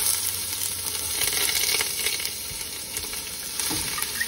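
Chopped onions frying in hot coconut oil in a pan, a steady sizzle.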